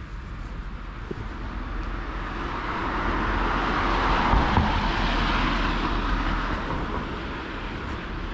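A passing vehicle: a broad whoosh of noise that builds, peaks about halfway through, and fades away again.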